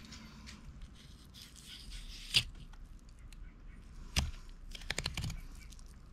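Knife cutting through a bluefin tuna's belly toward the spine: soft scraping and tearing of flesh, with a few sharp clicks about two and a half seconds in, at four seconds, and a quick cluster near the end.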